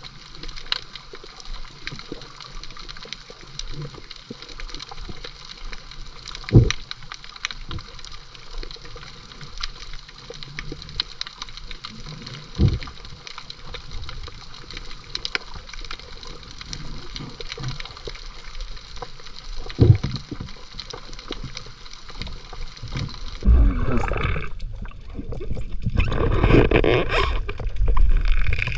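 Underwater sound on a coral reef: a steady hiss full of fine crackling clicks, broken by three short knocks. About 23 seconds in it gives way to louder bubbling and splashing water as the swimmer moves up near the surface.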